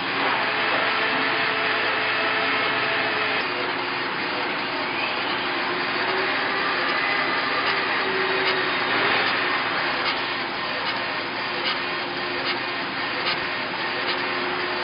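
Laser engraving machine at work on black stone: a steady airy rush with the whine of the head's drive motors, shifting in pitch as the head scans back and forth. From about ten seconds in, light ticks come at an even pace, a little more than one a second.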